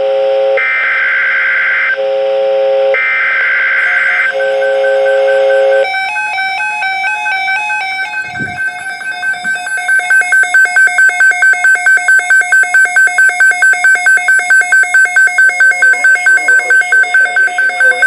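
The end of an EAS/SAME alert header on NOAA Weather Radio: two short bursts of harsh digital data tones about a second apart, with a lower beeping tone between them. Then the weather-alert radios sound their alarm, a warbling, stepping tone pattern that turns into fast, even beeping at a few beeps a second, signalling a tornado watch.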